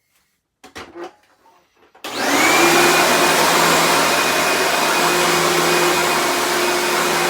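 A few handling knocks, then an old vacuum cleaner switched on about two seconds in: the motor spins up with a rising whine and settles into a loud, steady run.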